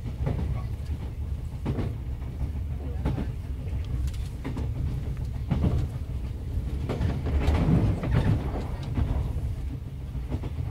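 Inside a 1970s JNR Yokosuka Line electric train running at speed: a steady low rumble with sharp clicks of the wheels over rail joints every second or so, swelling louder about three-quarters of the way through.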